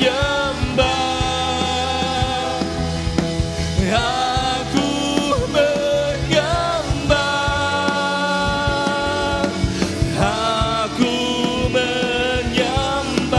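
A live church worship band plays a Mandarin worship song: singers hold long notes over electric guitars, keyboards and drums keeping a steady beat.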